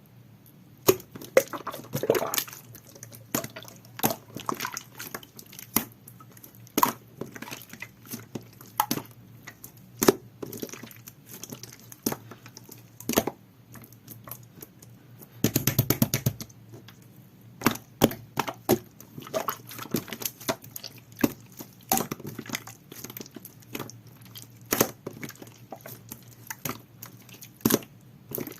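Hands squishing and poking a jelly-textured slime, giving irregular sharp clicks and pops as air pockets burst. A quick run of rapid crackling pops comes about fifteen seconds in.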